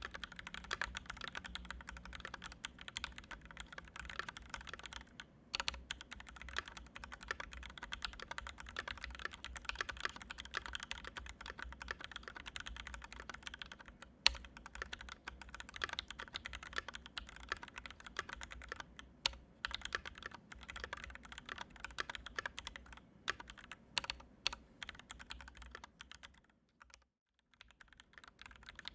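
Steady typing on a Canoe gen2 custom mechanical keyboard with Oa linear switches lubed with Krytox 205g0 and filmed, a fast run of keystroke clacks. One louder strike comes about halfway through, and the typing stops for about a second near the end.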